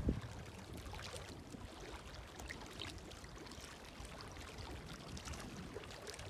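Faint, gentle lapping of lake water, with small scattered splashes and trickles.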